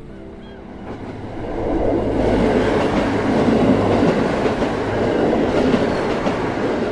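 A train passing: its running noise builds over the first two seconds, stays loud, then eases off near the end.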